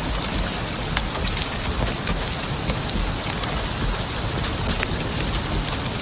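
A heavy rain and hail shower falling steadily, with scattered sharp ticks of individual hailstones striking.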